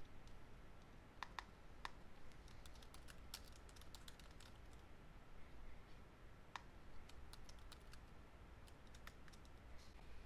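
Faint computer keyboard typing: scattered, irregular key clicks over a low room hum.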